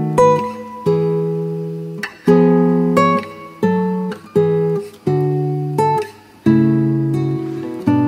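Background music on acoustic guitar: chords struck about once a second and left to ring.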